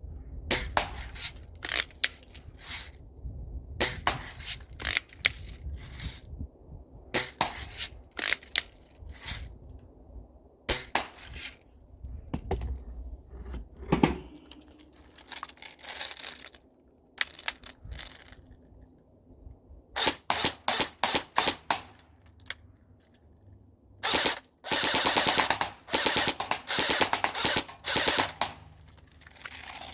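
Airsoft and BB guns firing: clusters of sharp, snapping shots, with a fast run of shots and then a long rapid burst near the end.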